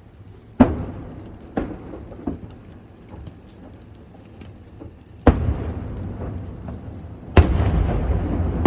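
Aerial firework shells bursting: a sharp boom, two smaller ones, then two louder booms near the middle and end, each followed by a long rumbling tail.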